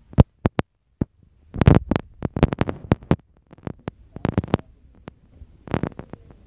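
Irregular sharp clicks, knocks and scuffing thumps of a person moving about with a handheld phone: handling noise and steps, with several clusters of scuffs a second or two apart.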